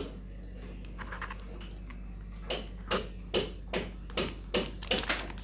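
Plastic bag of MSG, a plastic spoon and a clear cup being handled: quiet at first, then, about halfway through, a run of sharp clicks and crackles at about two to three a second.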